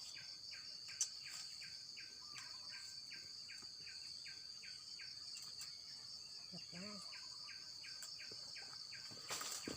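Steady high-pitched drone of insects, with a rapid repeated chirp about three times a second running through most of it.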